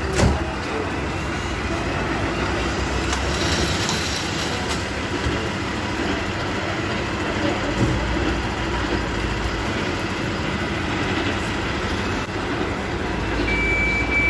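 Steady low rumble of an idling fire engine's diesel engine, with a sharp click just after the start, a knock about eight seconds in, and a short high beep near the end.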